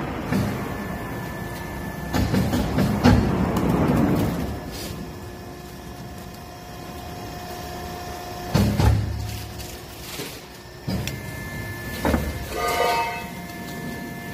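ECO 800A motor-winding copper extractor running with a steady machine hum while its blade rips copper windings out of a large electric-motor stator. There are repeated spells of harsh scraping and clanking with heavy thuds, strongest a couple of seconds in, about nine seconds in and again near the end, as the stator is shoved and turned against the steel frame.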